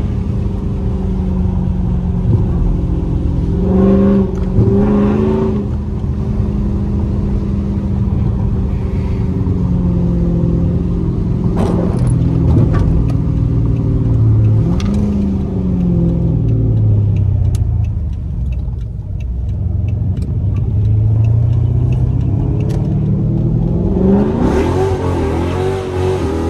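Dodge Charger's swapped-in 392 (6.4-litre) HEMI V8 under way, holding a steady note with a couple of quick throttle blips about four seconds in. The pitch falls as the car slows past the middle, then climbs steeply as it accelerates hard near the end, over a steady hiss of tyres on the wet road.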